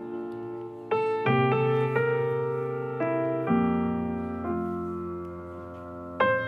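Slow piano music played through a Bose TV Speaker soundbar and heard through studio microphones. Single notes and chords come in about a second in and are struck every half second to a second, each left to ring and fade.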